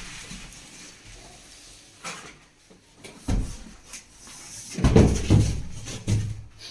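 Handling knocks and thumps: a few scattered knocks, then a louder cluster of low thumps and clatter about five seconds in.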